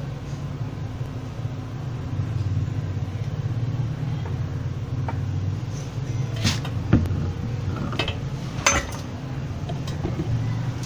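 Knocks and clinks of the metal housing of a 12-volt DC worm pump being handled as its head is taken off. There are four or five sharp knocks in the second half, over a steady low hum.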